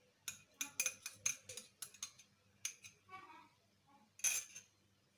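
Eggs being cracked against a bowl and their yolks dropped in: a quick run of sharp clicks and clinks in the first two seconds, then a single louder clink about four seconds in.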